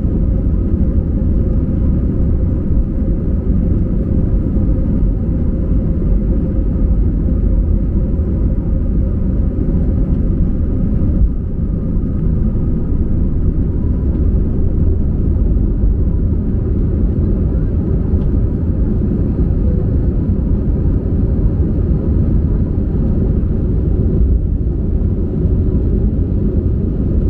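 Airliner taking off: the engines make a steady, loud low rumble, with a few faint steady tones above it.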